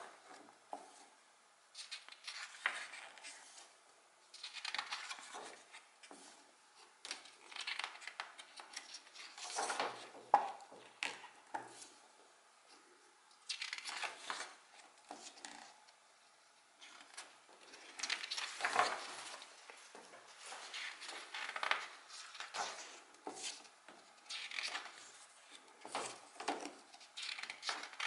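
Paper pages of a softcover photo book being turned one after another, each turn a short rustle and flap, coming every couple of seconds with brief quiet pauses between.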